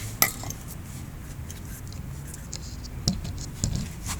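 Hard parts being handled on a workbench: scattered clinks and scrapes, with a sharp click just after the start and a couple more about three seconds in.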